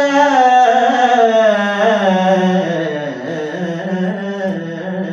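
A man singing an Urdu naat solo without instruments into a microphone, long drawn-out notes that bend in pitch and grow softer toward the end.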